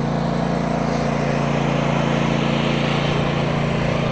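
Cub Cadet zero-turn mower's engine running steadily at a constant speed, an even low hum.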